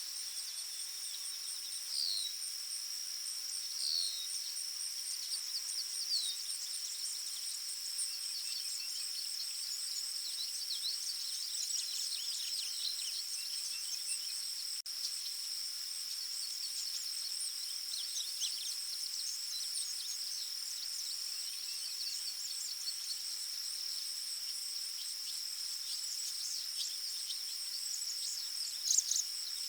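Forest ambience: a steady, high insect chorus of trilling crickets with birds chirping over it. Short falling bird chirps come about every two seconds at first, a busier flurry of chirps follows in the middle, and a louder chirp comes near the end.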